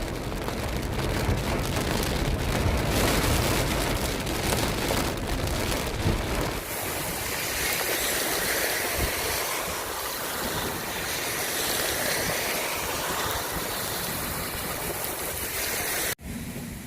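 Rain falling steadily, with a low rumble of wind on the microphone for the first six seconds or so. The sound cuts off abruptly near the end.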